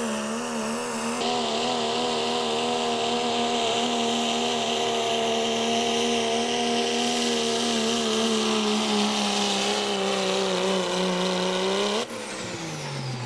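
Dodge hot rod diesel 4x4 pulling truck at full throttle dragging the sled. The engine note sags slowly as the load builds, then climbs briefly as the tires spin out about 12 seconds in. The throttle is then cut and the engine winds down.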